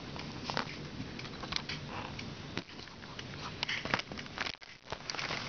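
Pop song played at half volume through the drivers of a pair of counterfeit Beats Solo HD headphones and picked up from outside the ear cups, sounding thin and tinny, with a sharp hit about once a second over a faint bass line.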